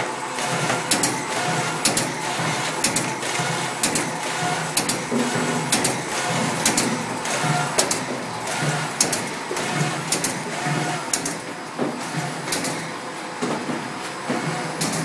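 Side-sealer shrink-wrapping machine running: a steady mechanical hum with sharp clacks, often in pairs, about once a second. The clacks thin out near the end.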